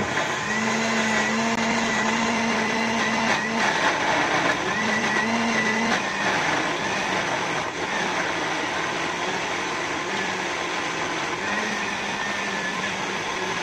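Electric countertop blender running steadily as it grinds a wet spice paste (bumbu), its motor hum wavering in pitch. It stops at the very end.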